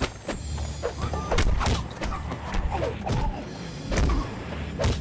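Kung fu film fight sound effects: a rapid series of sharp punch and block hits, about seven in five seconds, with short shouts and grunts from the fighters between the blows.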